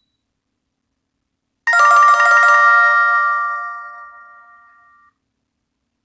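BlackBerry Q10 ringtone preview: a chiming, bell-like ringtone that starts suddenly a little under two seconds in and fades away over about three seconds.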